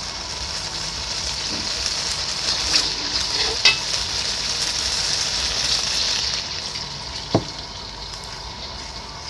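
Food sizzling as it fries in hot oil in a pan, with the steady hiss of frying. A cooking utensil clicks against the pan a few times, most sharply about three and a half seconds in and again about seven seconds in.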